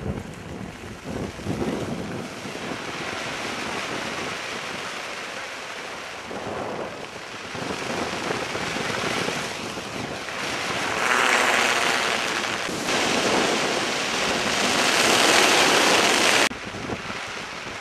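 Rushing roar of stacked Dynakite stunt kites sweeping through the air on their lines. It swells louder in the second half and cuts off abruptly about a second before the end.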